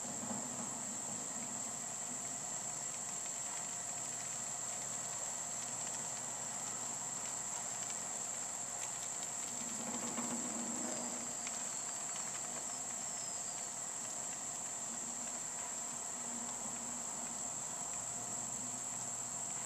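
Crickets trilling steadily and without break, over a faint steady hum.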